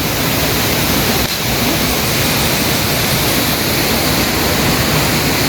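River water rushing steadily: a loud, even, unbroken noise.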